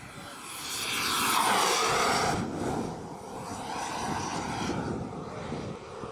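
Jet turbine of a large RC F-16 model making a low, fast pass: a whine that swells to its loudest about two seconds in, its pitch falling as it goes by. It then settles to a steadier, fainter turbine whine.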